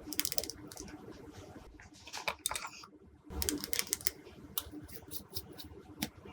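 Glossy slime being kneaded and stretched by hand, giving runs of sticky clicks and pops in several bursts.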